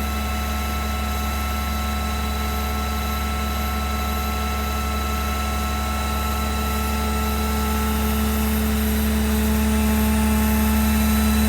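An engine running at a steady speed: a low, steady drone with fainter steady whines above it, growing slightly louder over the last few seconds.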